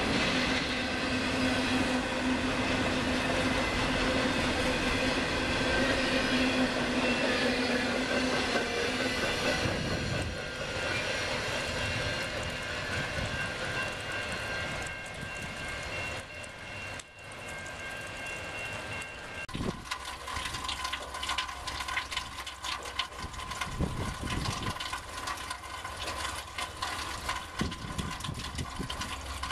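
Intermodal freight train's well cars rolling past on the rails, with several steady tones over the rolling noise, fading after about ten seconds as the end of the train moves away. A steady high tone and light crackling come up about twenty seconds in.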